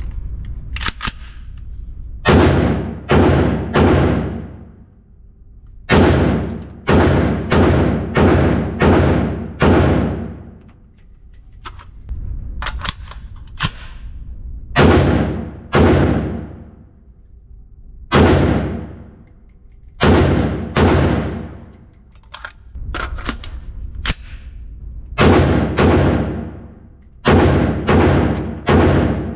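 5.56 mm CZ BREN 2 MS with an 8-inch barrel fired semi-automatically in quick strings of two to six shots, each shot cracking loudly and ringing off the walls of an indoor range.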